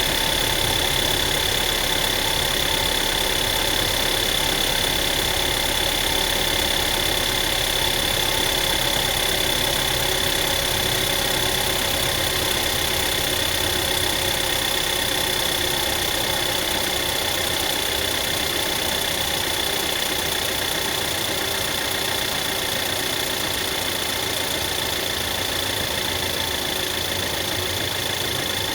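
2009 Volkswagen Tiguan engine idling steadily, with a rattle coming from the engine.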